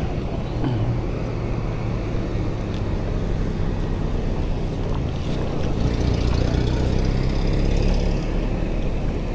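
Street traffic noise: a motor vehicle's engine runs close by with a steady low hum, swelling louder and hissier from about six to eight seconds in.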